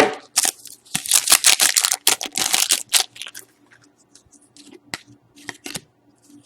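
A hockey card pack being torn open: crinkling and tearing of the wrapper for about the first three seconds, then quieter scattered clicks and rustles as the cards are handled.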